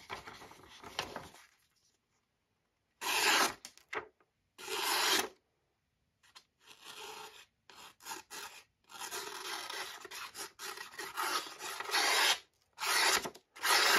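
Sheet of paper being sliced with a slip-joint pocketknife blade in a sharpness test: short rasping slicing strokes. There are two separate strokes about three and five seconds in, then strokes that come quicker and closer together toward the end.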